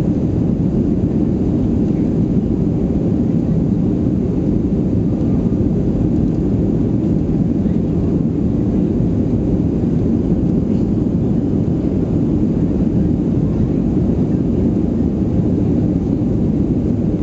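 Cabin noise inside a Boeing 737-300 climbing after takeoff: the steady low-pitched rumble of its CFM56-3 turbofan engines and the rush of air past the fuselage, heard from a seat over the wing.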